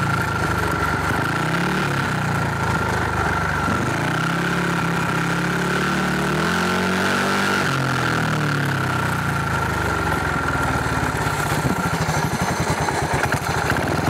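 Speedway bike's single-cylinder engine running, its pitch rising and falling again and again as the throttle is worked on and off.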